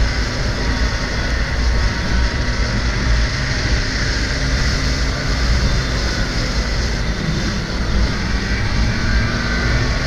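Snowmobile engine running steadily at cruising speed along a packed trail, with wind buffeting the microphone in a low, fluttering rumble.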